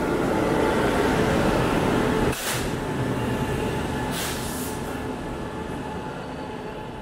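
Indian Railways electric locomotive and its passenger coaches passing close by on the adjacent track: a steady rolling noise of the train going past. There are a couple of brief higher-pitched surges near the middle, and the noise slowly fades as the coaches go by.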